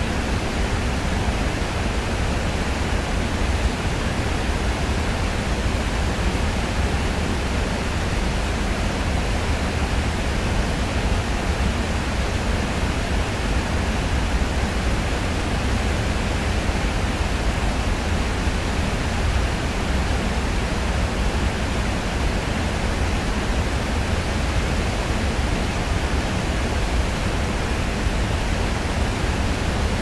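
Steady, even rush of a large waterfall, with a deep low rumble under the hiss of falling water.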